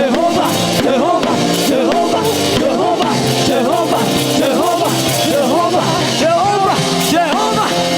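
Live gospel praise music: a voice singing with wavering vibrato over held keyboard chords and drums.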